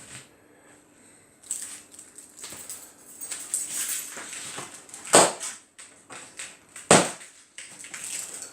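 Cardboard packaging being handled and cut open, with scraping and crinkling and two loud sharp noises in the second half, about two seconds apart.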